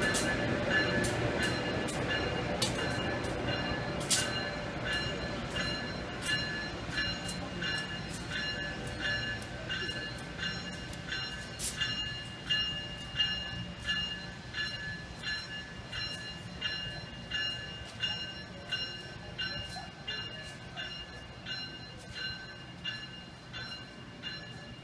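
Amtrak excursion train with an AEM-7 electric locomotive pulling away and receding. It makes an even run of clicks, about one and a half a second, with a steady high ringing, fading steadily as it goes.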